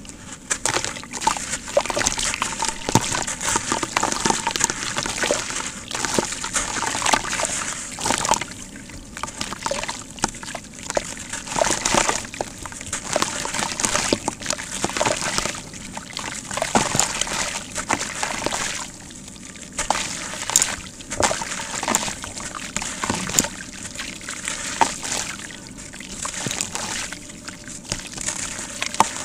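Lumps of sand-cement crumbling into muddy water in a plastic tub: dense, irregular gritty crackles with sloshing and small splashes, easing off in a few short lulls.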